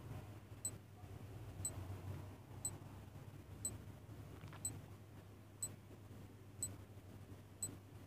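Countdown timer sound effect: a bright clock tick once a second, eight ticks in all, over a faint low hum.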